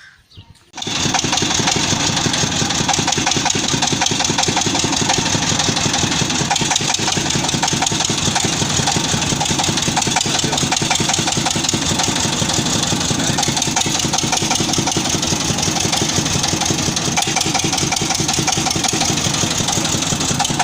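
Engine of a water-well boring machine starting up; its sound comes in suddenly about a second in and then runs steadily.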